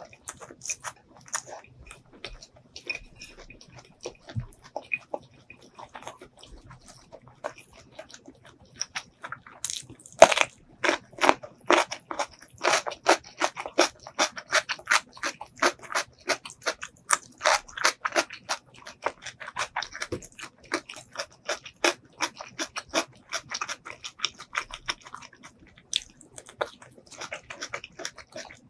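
Close-miked mouth chewing a handful of rice mixed with spicy pork liver larb, with wet clicks and smacks. The chewing is sparse at first, becomes a dense, steady run about ten seconds in, and thins out near the end.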